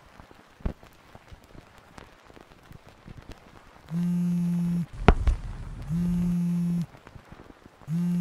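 Faint crackle and scattered clicks, then a loud, steady low electronic buzz that pulses on and off, about a second on and a second off, three times. A sharp thump with a low rumble falls in the first gap.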